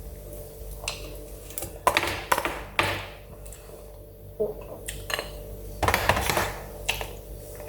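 Eating sounds at a meal: cutlery knocking and scraping on a plate, in a handful of short bursts.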